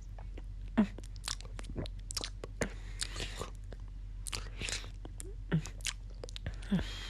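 Close-miked wet mouth sounds: quick clicks, slurps and breathy licking, with a few short throat sounds, performed as licking up blood from a bitten neck.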